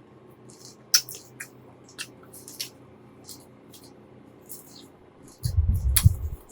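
Close-miked ASMR eating of shrimp: sparse wet mouth clicks and squishes of chewing, with a louder, low, rumbling stretch of chewing about five and a half seconds in.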